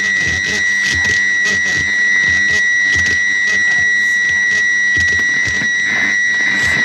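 Experimental noise music: a steady high-pitched whine over a fast, uneven pulse of low thumps and clicks, about four a second.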